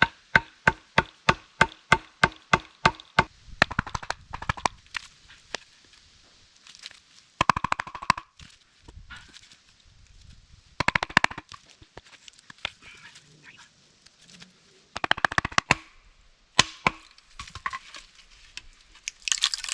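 Hammer driving nails into wood: a steady run of about a dozen blows, roughly three a second, then short rapid flurries of blows a few seconds apart.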